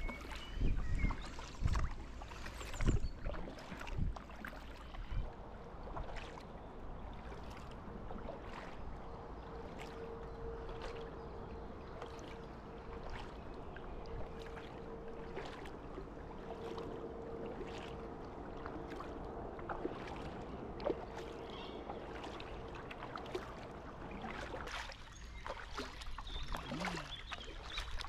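Kayak paddling on calm water: a double-bladed paddle dipping, splashing and dripping in repeated strokes. There are low thumps in the first few seconds, and a faint steady hum runs through the middle.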